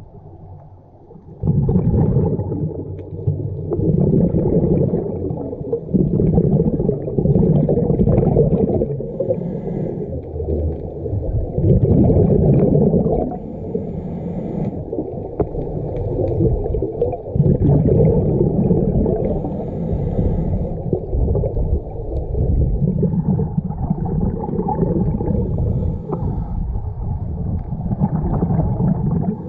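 Scuba regulator breathing heard underwater: exhaled bubbles gurgling in surges a few seconds long, with short quieter gaps between breaths. The sound is muffled, and it rises out of a short lull about a second and a half in.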